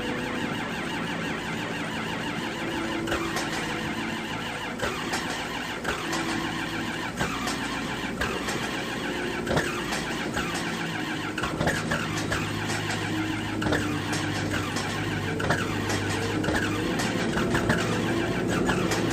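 John Deere 4630's turbocharged six-cylinder diesel being cold-started without its block heater: it cranks over and fires unevenly with sharp ticks, catching and running stronger a little past the middle.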